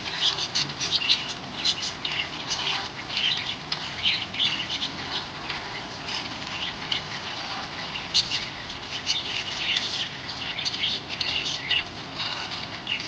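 Pet budgerigar chirping in quick, high, short notes, several a second without a break, busiest at the start and again around the middle.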